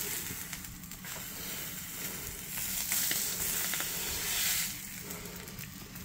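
Bratwursts sizzling as they fry in a pan: a steady crackling hiss that swells for a couple of seconds in the middle.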